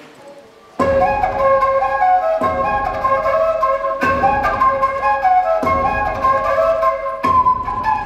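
Music starts suddenly about a second in: a flute melody over a low, pulsing accompaniment.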